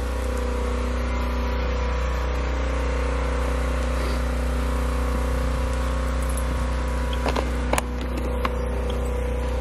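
Steady low mechanical drone with a few sharp clicks near the end.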